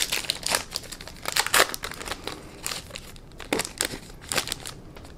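Foil wrapper of a 2018 Topps Big League baseball card pack crinkling and tearing as it is pulled open by hand, an irregular run of sharp crackles.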